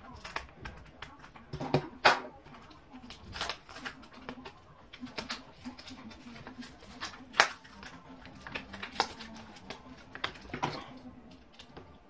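A cardboard-and-plastic blister pack being opened and torn by hand: irregular crinkles, rips and sharp clicks, with louder snaps about two seconds in and again about seven seconds in.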